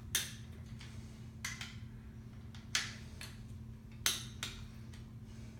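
Harbor Freight Pittsburgh Pro click-type torque wrench clicking as bolts on a Chevy 350 bottom end reach their set torque: about six short, sharp metallic clicks, roughly a second apart, over a steady low hum.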